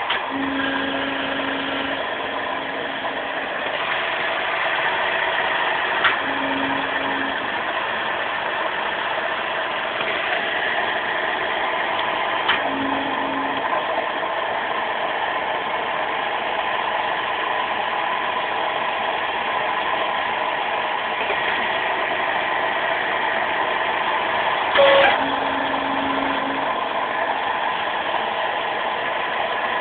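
A wire-rope swaging press's hydraulic power unit running steadily. A short low hum comes and goes a few times, and there are a few sharp clicks, the loudest near the end.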